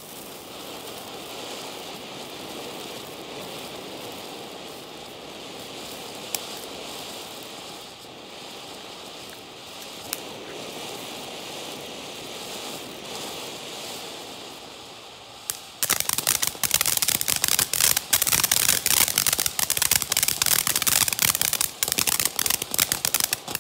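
Ground fountain firework spraying sparks with a steady hiss, broken by a couple of single pops. About sixteen seconds in it switches to louder, dense rapid crackling, which stops abruptly just before the end.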